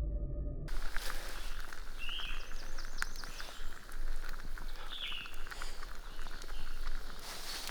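A music bed cuts off under a second in, giving way to outdoor woodland ambience: a steady hiss with scattered small clicks and crackles, and a bird chirping briefly twice.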